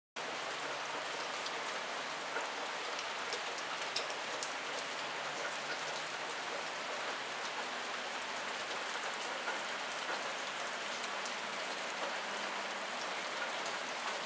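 Steady hiss and patter of heavy wet snow falling onto surfaces, with scattered single ticks of flakes or drops hitting.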